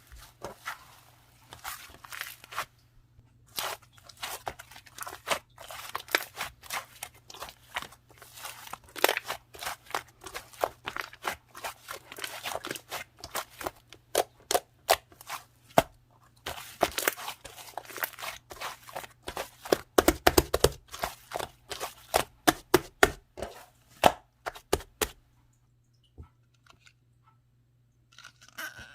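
Foam-ball slime being squeezed and kneaded by hand, the foam beads giving a dense, irregular crunching crackle that stops about 25 seconds in.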